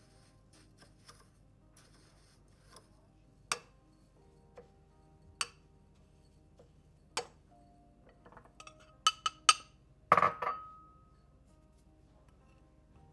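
Kitchenware clinking over soft background music: three light taps about two seconds apart, a quick run of clinks, then a louder clink that rings briefly.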